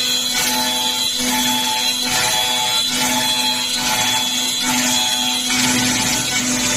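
CF-FKC8-1200 multi-spindle CNC wood lathe and router machining a row of wooden rods: a steady hiss and whine of cutters in wood, mixed with background music.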